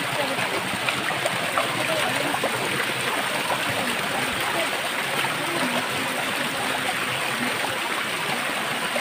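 Small waterfall spilling over rocks into a shallow pool: a steady, continuous splashing and running of water.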